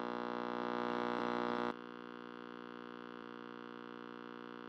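A steady, sustained synthesizer chord with no rhythm. It drops in level sharply about two seconds in, then cuts off abruptly at the end.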